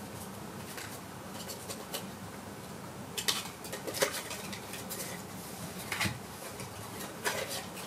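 Playing cards clicking and tapping as they are handled and set into a card pyramid: a few light, scattered clicks over a faint steady room hum.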